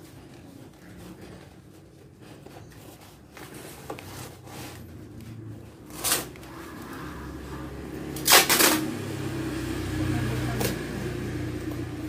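Corrugated cardboard being handled and folded by hand: rustling and crinkling with a few short, sharp scrapes, the loudest pair about eight seconds in.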